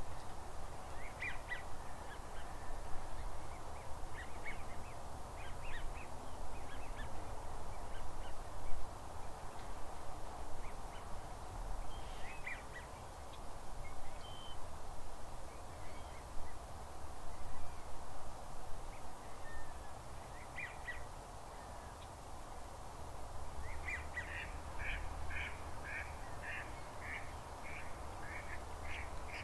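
Ducks calling on a wetland: short scattered calls at first, then a quick run of repeated calls, about two a second, near the end, over a steady low background rumble.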